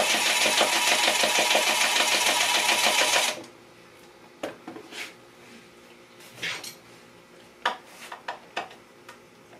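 Cordless impact driver hammering a screw home, a rapid rattle that cuts off suddenly about three seconds in. After it come a few light clicks and knocks as the tool and screws are handled.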